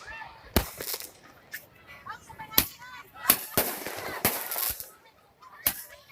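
Fireworks exploding: about half a dozen sharp bangs at irregular intervals, with a longer crackling stretch near the middle.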